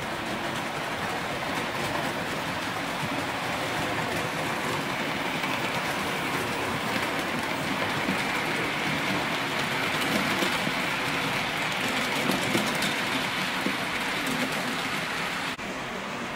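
HO-scale model freight train, a C58 steam locomotive model hauling a string of wagons, running along the track with a steady rolling noise of wheels on rails. It grows louder as the wagons pass close, then drops suddenly to a quieter run near the end.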